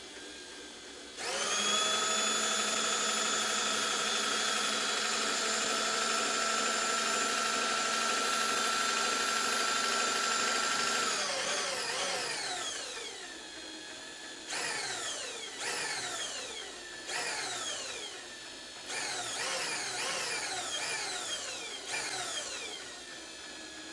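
A small high-speed electric motor spins up and runs at a steady pitch for about ten seconds, then winds down with a falling whine. It is followed by about five short runs, each coasting down in pitch after it is released.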